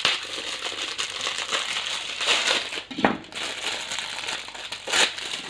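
Plastic toy packaging crinkling and crackling as it is handled and opened, with a sharp snap about three seconds in and another near the end.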